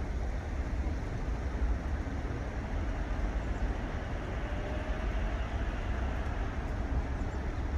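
Steady background rumble and hiss of distant road traffic, with no distinct events.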